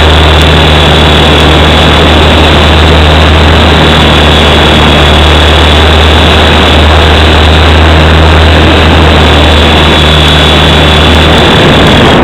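Small electric RC helicopter (WLtoys V912) heard through its own onboard camera's microphone: a loud, steady drone of the spinning rotor and motor, with a thin high whine over it. The low drone falls away near the end as a hand catches the helicopter.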